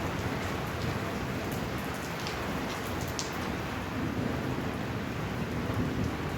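Heavy rain falling steadily, with a few scattered sharp ticks standing out against the downpour.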